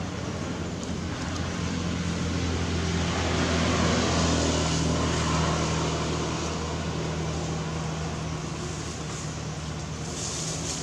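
A motor vehicle passing by, its engine hum and road noise swelling to a peak about four seconds in and then slowly fading.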